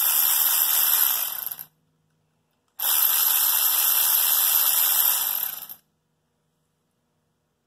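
Hand-held power tool running in two steady spells of about three seconds each, with a short break between them, backing out the 10 mm bolts that hold an internal dampener to the front of the block.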